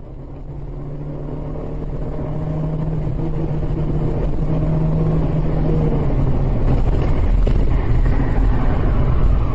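Car engine and road noise heard from inside a moving car, a steady hum over a low rumble that grows steadily louder as the car speeds up to nearly 100 km/h.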